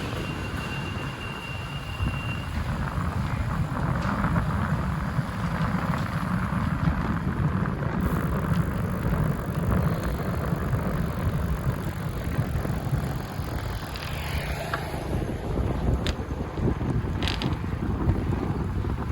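Bicycle on the move: a steady rumble of wind on the microphone and road noise, with mechanical rattling from the bike and a few sharp clicks near the end.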